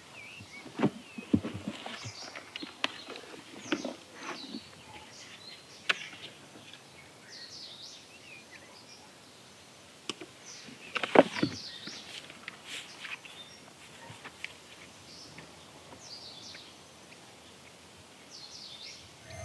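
Footsteps and rustling in dry grass, with birds chirping now and then; the loudest burst of rustling comes a little over halfway through.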